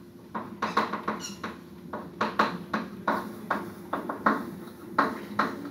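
Chalk writing on a blackboard: a quick, irregular run of taps and scratching strokes, with a brief high squeak of the chalk about a second in.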